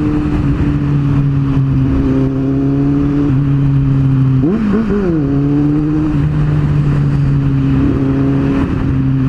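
Kawasaki Z750 motorcycle engine and exhaust running at a steady cruise, the note holding nearly constant, with a brief dip and rise in pitch about halfway through.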